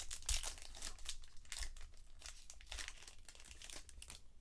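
Foil trading card pack wrapper crinkling and rustling as it is torn open and handled, in quick irregular bursts that thin out after about two seconds.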